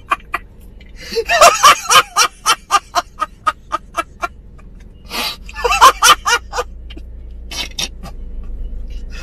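A man laughing hard in rapid pulses of about four a second, in several bouts with short breaks between.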